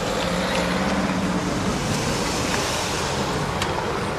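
Road traffic noise: a car's engine running under a steady rushing hiss.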